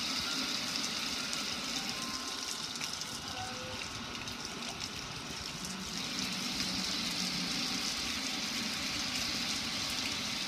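Water pouring steadily onto a gas grill, splashing off its lid and control panel onto concrete: a continuous rushing spatter that softens slightly for a couple of seconds in the middle.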